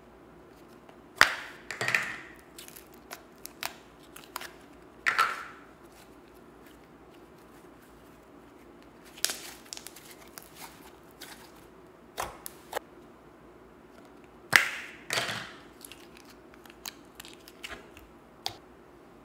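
Soft slime pressed and squished by hand, giving irregular sticky clicks and short squelching crackles, a few of them sharp and loud.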